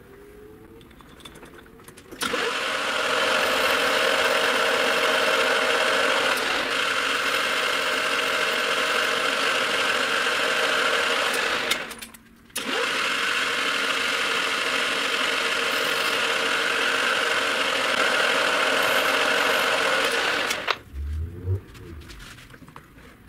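Metal lathe running while turning a cast part, with a steady mechanical whir. It starts about two seconds in, cuts out for half a second around the middle, runs again, and stops near the end.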